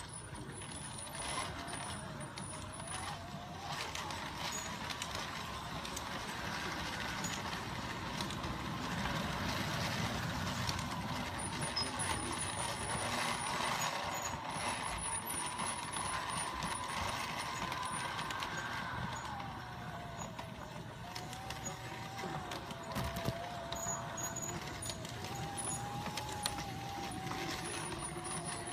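LGB G-scale model train running on its track, heard from aboard. The electric motor's whine slides up and down in pitch as the speed changes, over a steady rumble and clicking of wheels on the rails.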